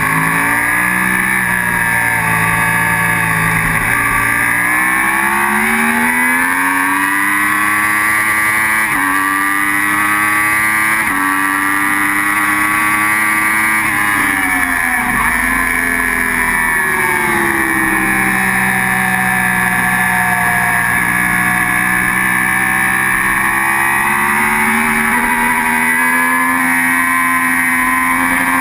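Sport motorcycle engine running hard on track. Its pitch climbs through the first part, drops back twice in quick steps as it shifts up, and falls about halfway through under braking and downshifts. It then climbs steadily again towards the end, with a steady rush of wind noise underneath.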